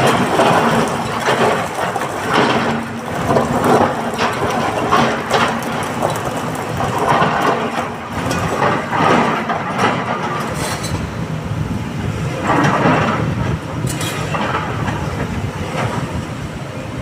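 Excavator working in rock: a continuous, irregular clatter and scraping of stone with the machine's engine running underneath.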